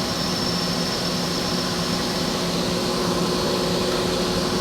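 CNC lathe running steadily while turning a small part: an even machine hum with a thin, constant high whine.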